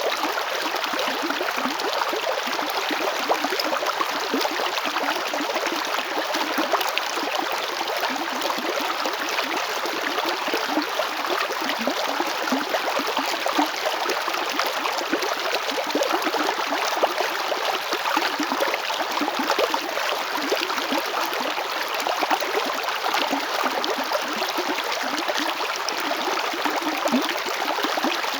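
River water flowing and rushing over stones, a steady, even babble with fine splashing.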